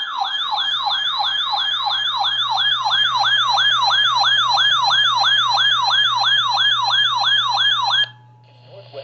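Siren-style alert tone received over the air: a rapid yelping sweep, about three cycles a second, that cuts off suddenly near the end, over a low steady hum.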